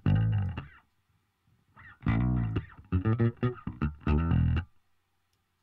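Recorded plucked electric string part, bass or guitar register, played back in short phrases of notes with brief silent gaps. It runs through a pitch-tracking dynamic EQ set to a very fast attack.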